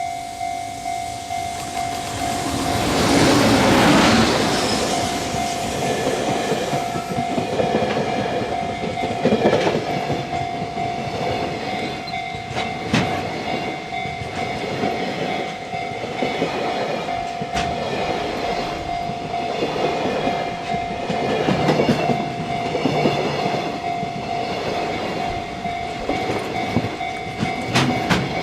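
A freight train passing close by at a level crossing. A loud rush about three seconds in as the locomotive goes by, then a long run of freight wagons with clattering wheels and sharp knocks over the rail joints every few seconds. The crossing's warning bell keeps sounding a steady tone throughout.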